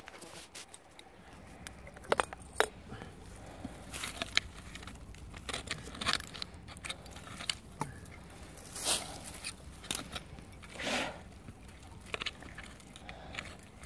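Hand digging in dirt and roots: a hand tool scraping and raking at the soil, with crunching and scattered sharp clicks, the sharpest a little past 2 seconds in, and longer scrapes about 9 and 11 seconds in.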